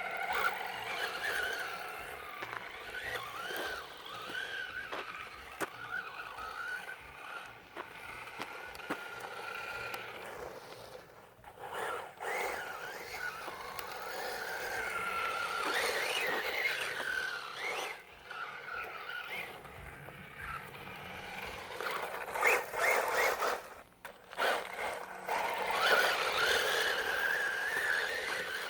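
Brushless electric motor and drivetrain of a Losi 10SCTE 1/10-scale RC short-course truck whining, the pitch rising and falling again and again with the throttle. Tyres scrabble and scrape on dirt, with scattered knocks, and the sound drops away briefly twice.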